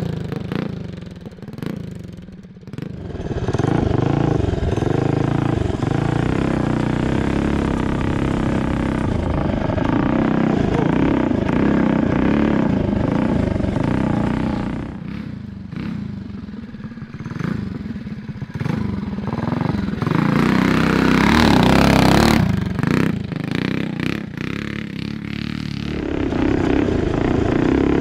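Mini bike's Tillotson 225cc single-cylinder racing engine revving up and down as it is ridden hard around a slippery wet grass lap, the pitch rising and falling with the throttle. The revs drop back about two seconds in and again around the middle, then climb to the loudest stretch a few seconds later.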